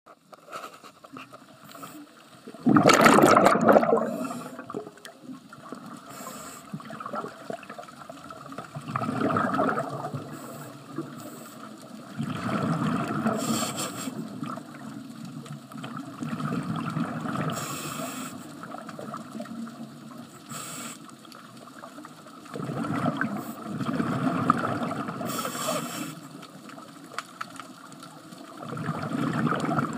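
Scuba diver's exhaled regulator bubbles rushing past an underwater camera in surges every four to six seconds, with a steady water hiss between them. The loudest surge comes about three seconds in.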